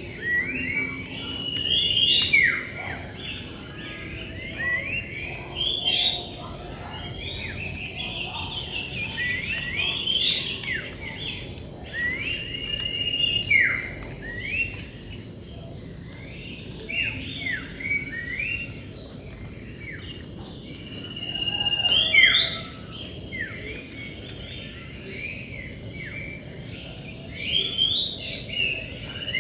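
Several wild birds calling and singing, a busy mix of short whistled notes, many of them quick downward sweeps, over a steady high-pitched drone of insects.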